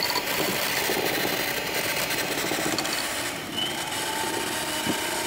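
Electric hand mixer running steadily, its beaters whirring in a bowl of cheesecake batter.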